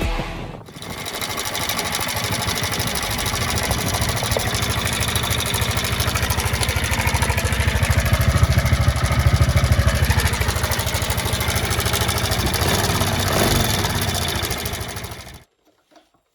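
Alpha 110cc moped's single-cylinder four-stroke engine running at a fast, even idle, rising slightly for a few seconds midway, then cutting off suddenly near the end.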